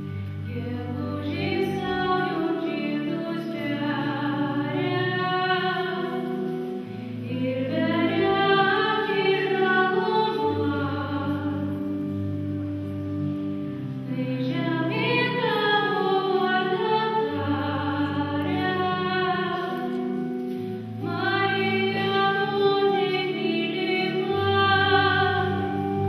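A girl singing a slow solo song into a microphone over an instrumental accompaniment with held bass notes, her voice phrased in long lines with short breaths between them.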